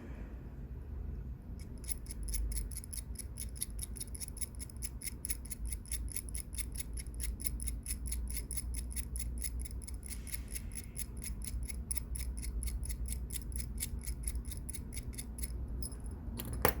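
Rapid, even ticking, about six ticks a second, that starts about two seconds in and stops shortly before the end.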